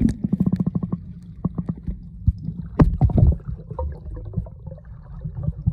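Muffled underwater sound from a camera in a swimming pool: low rumbling and gurgling water, with a quick train of knocks in the first second and louder thuds about three seconds in.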